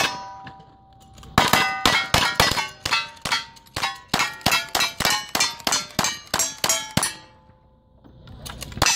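Rapid gunfire from revolvers and a rifle, about twenty shots at three to four a second, each followed by the ringing clang of a hit steel plate target. One more shot and ring comes near the end.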